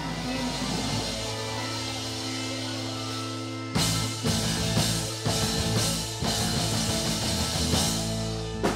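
Rock band with electric guitar and drum kit: a held guitar chord, then from about four seconds in a run of drum and cymbal hits over the ringing chords.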